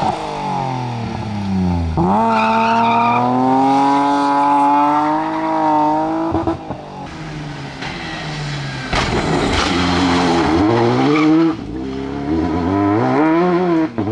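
Rally car engines at full throttle on a tarmac stage: a BMW E30 rally car's engine revs with tyre squeal as it slides out of a hairpin, then a Citroën DS3 rally car accelerates hard. The engine note climbs steadily for several seconds, drops sharply at a gear change, and climbs again near the end.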